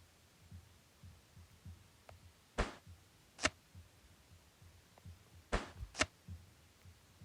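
Short scratchy strokes of drawing on paper, four of them in two pairs about three seconds apart, over soft low bumps of handling.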